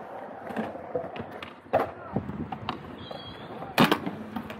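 Aggressive inline skate wheels rolling on concrete, with a knock about halfway through and a loud sharp clack near the end as the skates land on the concrete ledge for a grind.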